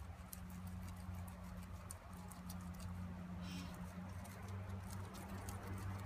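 A guinea pig chewing fresh green hay: a rapid, irregular run of small crunchy clicks, with a brief rustle of the stalks about halfway through. A steady low hum runs underneath.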